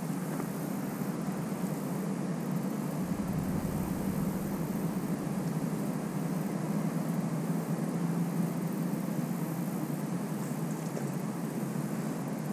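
Steady low mechanical drone over an even wash of background noise, with a brief extra low rumble about three seconds in.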